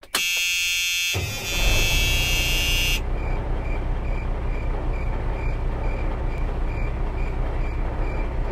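A vehicle horn sounds for about three seconds over a low engine rumble. A truck's reversing beeper then beeps about three times a second over the engine and street noise.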